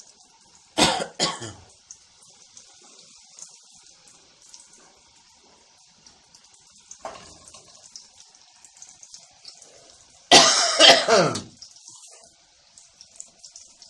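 Nimki deep-frying in hot oil, a steady high sizzle. A person coughs about a second in with two quick coughs, and again later with a longer, louder cough.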